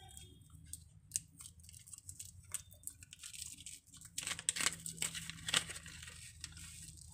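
Paper SIM card packet being torn open and crinkled by hand: a few small crackles, then a denser run of tearing and rustling from about three to six seconds in.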